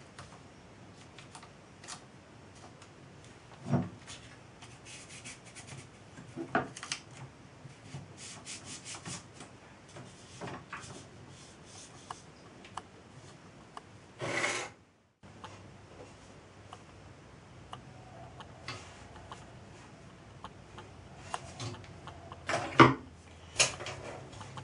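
Hands rubbing and smoothing paper tape down over the lagging of a small model steam engine boiler: soft scratchy rustling with scattered light clicks, and a short louder scratchy burst about halfway. Near the end come a couple of sharp knocks as a thin steel baking tray is handled.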